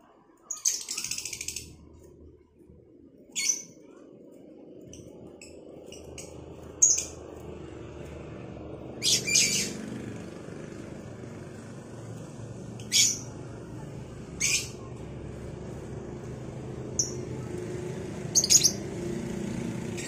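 Caged lovebirds calling back and forth with short, shrill chirps and squawks every few seconds, with a longer burst of chatter near the start. A low background rumble runs beneath the calls.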